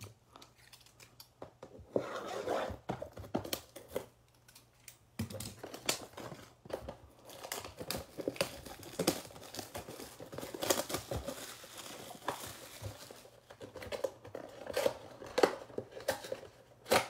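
Plastic shrink-wrap being torn and crumpled off a sealed 2020-21 Panini Illusions Mega box of trading cards, an irregular crackling that runs on for many seconds, with the cardboard box being opened near the end.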